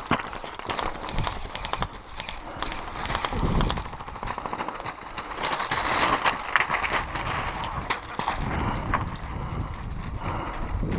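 Airsoft rifles firing in rapid bursts, the shots coming as sharp cracks, over footsteps crunching on loose gravel.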